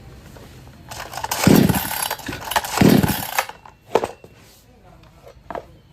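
Two-stroke chainsaw engine running in two loud surges about a second and a half apart, then two sharp clicks.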